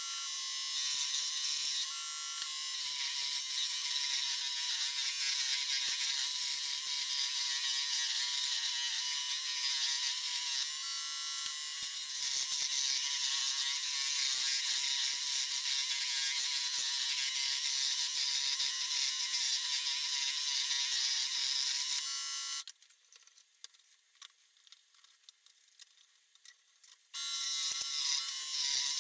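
Scroll saw running, its blade cutting through a wooden board with a steady buzzing rattle. Near the end the sound drops away for about four seconds, then the saw runs again.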